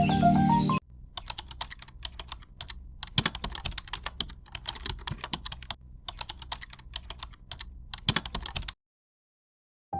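Music that cuts off suddenly just under a second in, then computer keyboard typing: runs of quick key clicks broken by short pauses, stopping about a second before the end.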